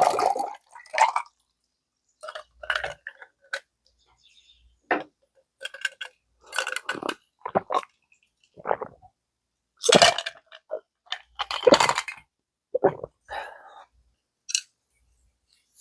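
Eating utensils clinking and clattering against a bowl of gamjatang: a dozen or so short, separate clinks and knocks with pauses between them.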